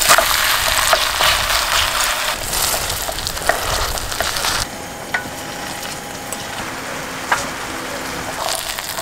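Batter poured into a pan of hot oil, sizzling and frying as a seafood-and-chive pancake, with a wooden spatula spreading it. The sizzle is loud at first, then drops to a softer sizzle with a few light clicks about halfway through.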